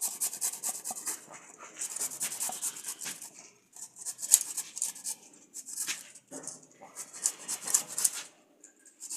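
Quick rasping strokes of a vegetable being scraped or cut, coming in bursts of about a second with short pauses between.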